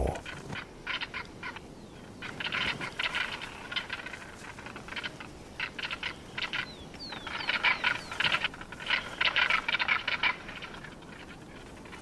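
Caracaras calling at a carcass in quick rattling runs. The calls come in several bouts, with the loudest stretch in the second half.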